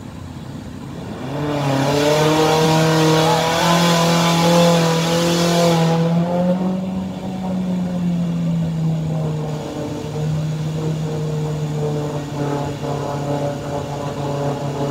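Off-road Suzuki Jimny's engine revving hard under load as it pushes through a deep muddy water crossing. It comes in strongly about a second in, climbs in pitch and then eases off, with a loud rushing hiss over it for the first few seconds.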